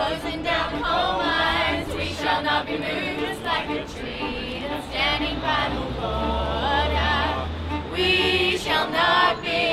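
A small group of men and women singing together in unison, accompanied by a bowed violin.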